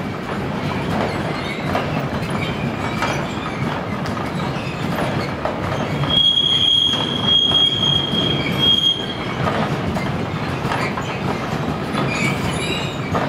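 Freight train of empty double-deck car-carrier wagons rolling past, wheels clicking over rail joints. About six seconds in, a high steady wheel squeal rings out for around three seconds.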